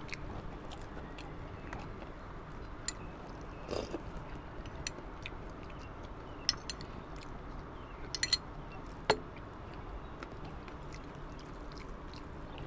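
Quiet eating sounds: chewing and hand-mixing rice, with a few sharp clicks of a metal spoon against a small glass bowl, over a steady background hiss.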